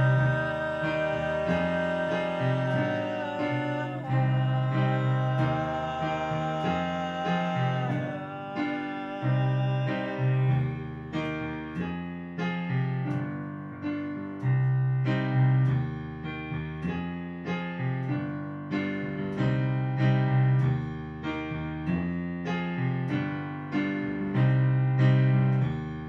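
Instrumental music led by keyboard: held chords for the first several seconds, then a steady pattern of struck notes over a repeating bass line.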